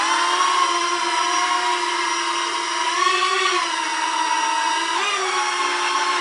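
Small toy quadcopter's four ducted propellers whining steadily as it lifts off and hovers, the pitch rising briefly about three seconds in and jumping again near five seconds.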